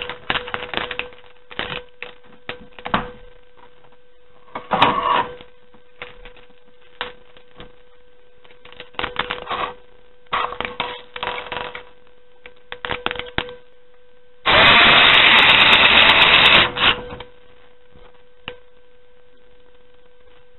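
Scattered clicks and clatter of a computer power supply being handled and fitted into a steel case, with one loud noise lasting about two seconds about two-thirds of the way through. A faint steady hum sits underneath.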